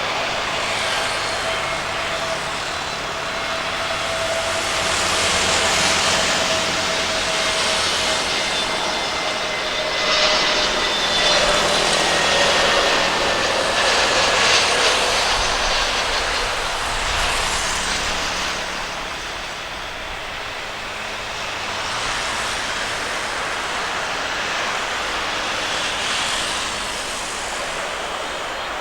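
Airbus A320neo jet engines of a landing airliner passing, a broad roar that swells and eases, with a whine that slowly falls in pitch.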